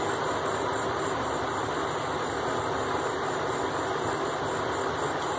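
Steady, even rushing noise like a running fan, holding one level throughout with no distinct knocks or clicks.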